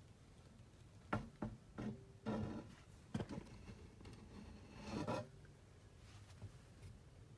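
Faint, scattered clicks, taps and brief rattles of small carburetor parts and throttle linkage being handled, between about one and five seconds in.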